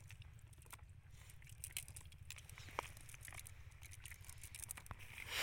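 Faint crinkling and scattered small clicks of a wet nylon cast net being handled as fish are picked out of its mesh, over a low steady rumble.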